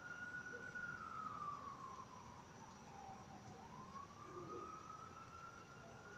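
Faint siren wailing, its pitch sliding slowly up and down, about one full rise and fall every five to six seconds.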